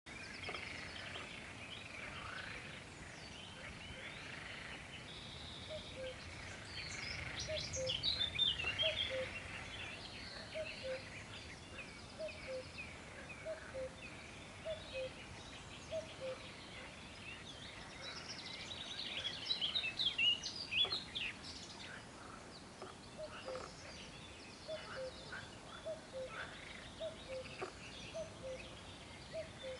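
Wild birds singing and chirping, with livelier bursts of song twice, once near a third of the way in and again around two thirds. Through it a low two-note call, the second note lower, repeats about once a second.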